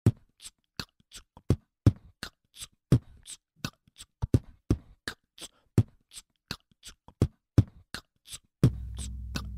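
Beatboxed beat of kick thumps and crisp hi-hat clicks, built up as a loop on a Boss RC-505 loop station. A low steady drone comes in near the end.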